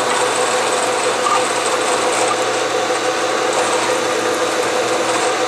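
Bridgeport vertical milling machine with its spindle running while a center drill is fed into a metal block: a steady machine hum with a fast, fine rattling texture from the cut.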